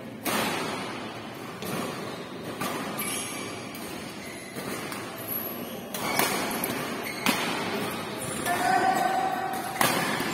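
Badminton rackets striking the shuttlecock during a rally: sharp cracks roughly every second or so, about eight in all, each ringing on in a large hall, with voices and shouts around.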